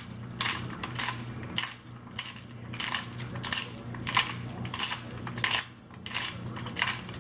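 Pepper mill grinding black pepper: a crunching grind in repeated short twists, about two a second.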